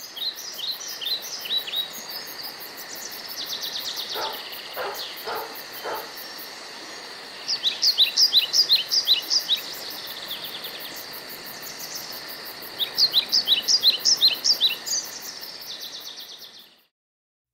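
Songbirds singing over a steady, rapid high insect ticking, with repeated bursts of quick descending chirps loudest about eight and thirteen seconds in. Four short lower notes sound between four and six seconds in. The sound fades out just before the end.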